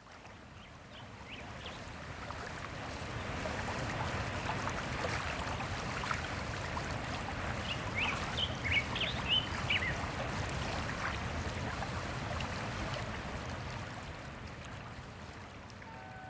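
Steady rushing noise like running water that swells over the first few seconds and eases off near the end, with a cluster of short high chirps about halfway through.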